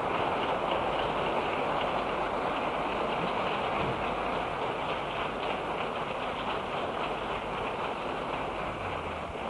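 Audience applauding after a song, a dense steady clapping that tapers off slowly near the end.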